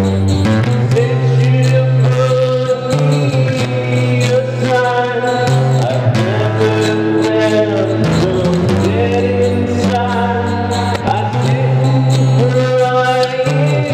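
A song: a sung vocal melody over music with long, sustained low bass notes.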